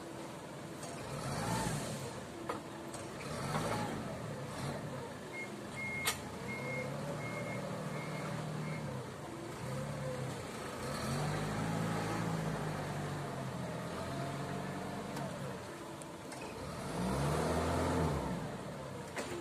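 Forklift engine running and revving up and down repeatedly as it manoeuvres. About a third of the way in, its reverse alarm gives a string of about seven short beeps, roughly two a second, with a sharp click among them.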